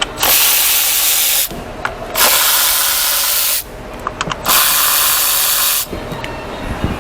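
Compressed-air blow gun giving three long hissing blasts, each about a second and a half, with short pauses and a few small clicks between them.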